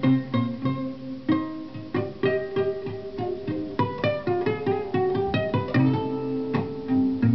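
Instrumental music: plucked strings playing a quick line of short notes over held low notes.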